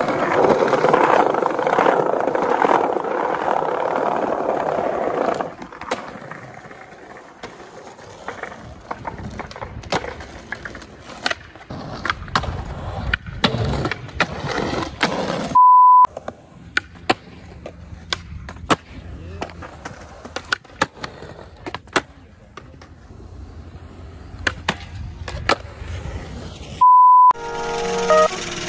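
Skateboard wheels rolling over rough stone paving, then a run of sharp clacks of tail pops, flip tricks and landings on concrete and ledges. A short high beep sounds about halfway through and again near the end.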